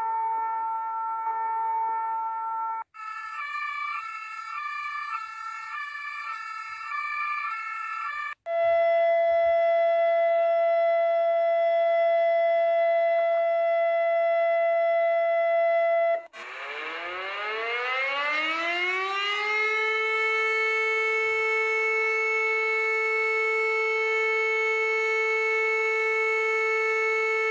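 A run of electronic emergency-alert alarm tones, one after another. First a steady held tone; about three seconds in, a tone that alternates between two notes; about eight seconds in, a steady chord of several tones; and about halfway through, a siren that winds up in pitch over a few seconds and then holds a steady wail.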